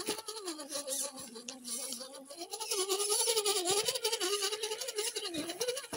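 Electric motor and gearbox of a Carson RC rock crawler whining as it crawls through a shallow stony creek, the pitch sliding up and down with the throttle and getting louder about halfway through.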